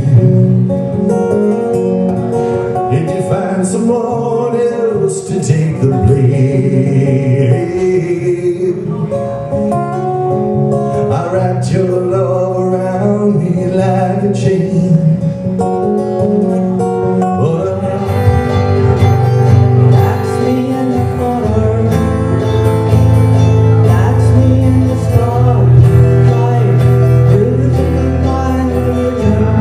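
Live acoustic music: a man singing to acoustic guitar. About two-thirds of the way through, a fuller sound with deep bass comes in.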